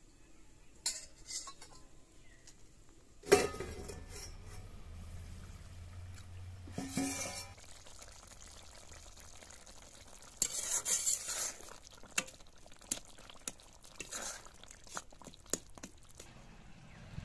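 Metal ladle stirring and scraping in a metal kadai of egg and tomato curry, with a run of short clinks of metal on metal. A sharp knock about three seconds in is the loudest sound.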